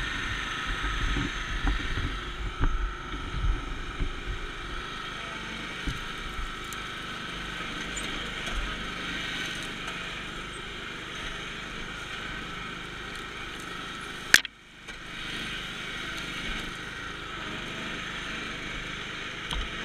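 Riding lawn mower's engine running steadily as it drives over rough, brushy ground. There are thumps in the first few seconds and one sharp knock about fourteen seconds in.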